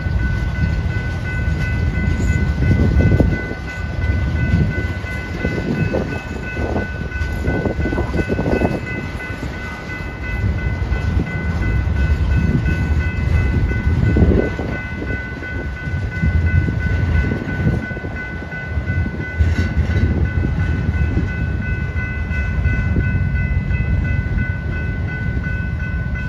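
Freight train cars rolling past close by: a steady low rumble of steel wheels on rail, with uneven louder clanking and clatter a few seconds in, again mid-way and around halfway through, and a thin steady high whine over it.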